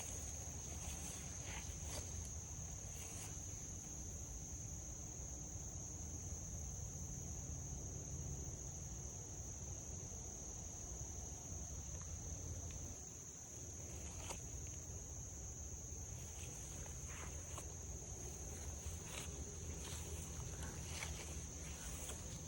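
Steady high-pitched chorus of insects trilling without a break, with scattered light footsteps and crunches on the trail over a steady low rumble.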